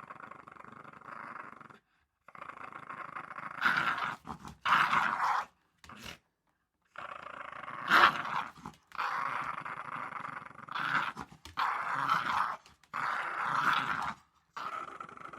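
Small dog growling in play: a string of drawn-out growls with short breaks between them, rising into louder snarling bursts from about four seconds in, with the sharpest, loudest one about eight seconds in.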